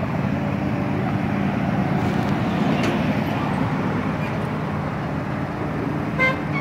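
Miniature park train running, a steady rumble of the train and its wheels on the narrow-gauge track heard from an open passenger car. About six seconds in there is a brief high-pitched sound.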